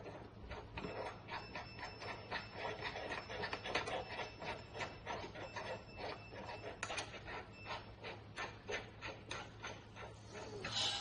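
Caps being twisted onto the tops of the metal posts of a cryolipolysis machine's handle holder: a quick run of small clicks and rubbing, several a second, as the threads and the metal rack are worked by hand.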